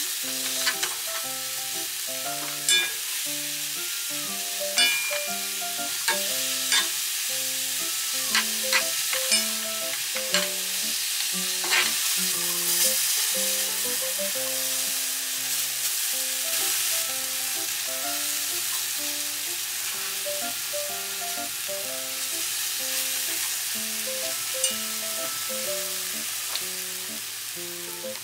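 Enoki mushrooms in a spicy soy-and-chilli sauce sizzling steadily as they reduce in a frying pan, stirred with a silicone spatula that knocks against the pan several times in the first twelve seconds. Light background music plays over it.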